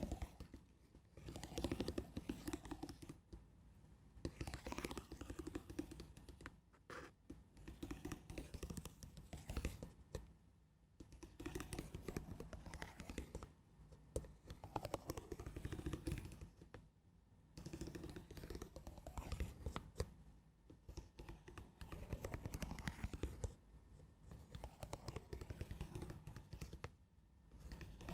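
Slow, gentle ASMR scratching close to the microphone: soft, crackly strokes repeated about every one and a half to two seconds.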